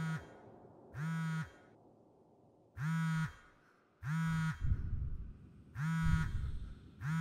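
Low buzzing tone in half-second blasts, repeating about every one to two seconds at uneven gaps, with a deep rumble after two of the later blasts.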